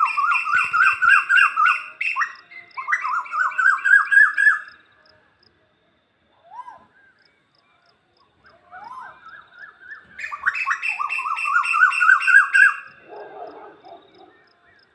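A bird calling in fast runs of short rising notes, about four a second, in two long bouts with a pause between them broken by a few single calls.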